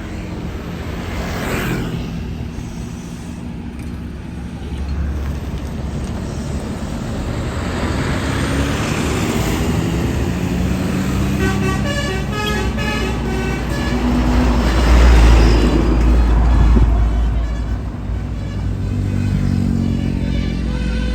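Tour bus engines running and moving past. About halfway through, a telolet multi-tone bus horn plays a quick run of changing notes, and the low engine rumble is loudest soon after.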